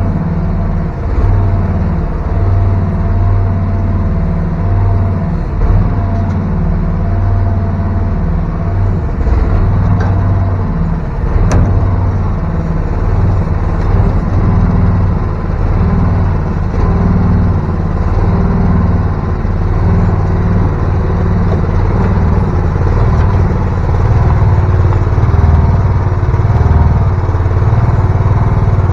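VC13C mini excavator's small diesel engine running steadily, with a faint steady whine above it. A single sharp clank about a third of the way through.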